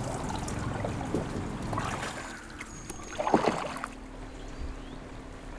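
Canoe paddles dipping and splashing in calm river water, with one brief louder burst a little past halfway, then quieter running water.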